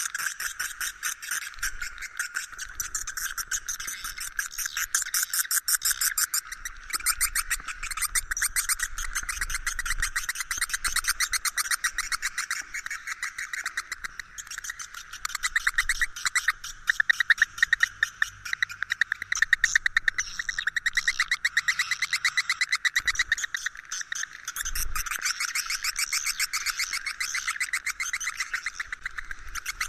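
Swiftlet roosting lure call (suara inap), the recorded call played in swiftlet houses to draw edible-nest swiftlets in to roost: a dense, continuous high-pitched twittering of many rapid chirps and trills, louder for a stretch in the middle.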